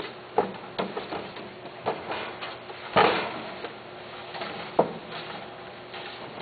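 Irregular knocks and rattles of a wire pet cage with a plastic tray as the cat inside moves about, about half a dozen in the first five seconds, the loudest about three seconds in.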